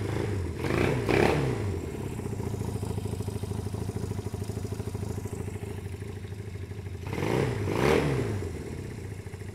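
1974 Honda CB200's parallel-twin engine running just after starting, choked on only one of its two carburettors: it idles with a quick, even pulse and is revved up and back down twice, about a second in and again near the end.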